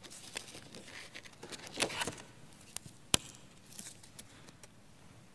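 Communion bread and altar vessels being handled: scattered faint clicks and rustles, with one sharp click about three seconds in.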